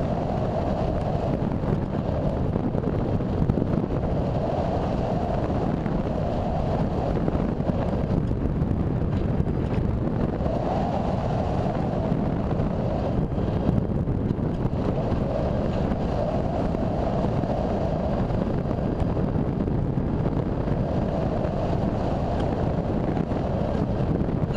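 Airflow rushing over the microphone of a camera riding aboard a radio-controlled sailplane in flight: a steady roar of wind. A faint hum swells and fades every few seconds.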